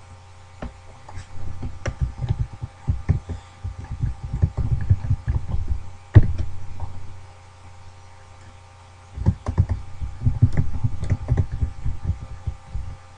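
Typing on a computer keyboard: rapid runs of key clacks and thumps, pausing for a couple of seconds in the middle, with one louder hit about six seconds in, over a faint steady hum.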